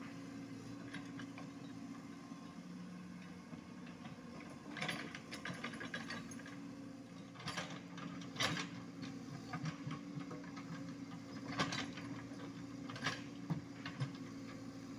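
Komatsu PC75UU mini excavator's diesel engine running steadily, with scattered bursts of clanking and rattling from the working machine about five, eight and a half, eleven and a half and thirteen seconds in.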